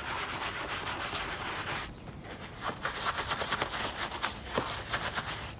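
Hand scrub brush scrubbing foamy glycerin soap into saddle leather: quick back-and-forth scratching of the bristles, with a short pause about two seconds in.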